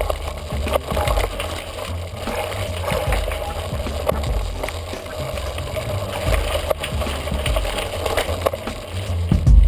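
Mountain bike rattling over a rough, rocky trail: a low rumble of wind and vibration on the microphone with scattered clicks and knocks.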